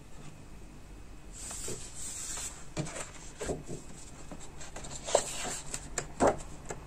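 Pages of a paperback colouring book being leafed through by hand: paper rustling, with a run of quick sharp flaps as leaves turn over, starting about a second and a half in.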